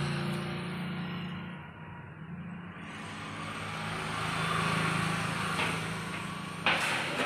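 A steady engine-like drone that swells about four to five seconds in and then eases off, with a sharp knock near the end.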